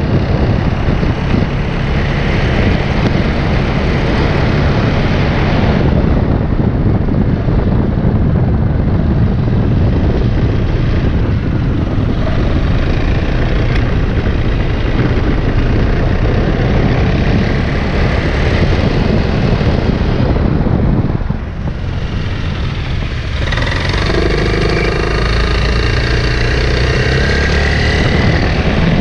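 Piaggio Beverly 400 scooter's single-cylinder engine running under way, heard close from a mount down by the rider's ankle. The sound eases off briefly about three-quarters of the way through, then picks up again.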